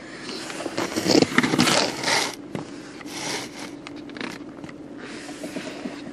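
Car seatbelt webbing pulled out and drawn across clothing, rustling and scraping for a couple of seconds, then a few small clicks.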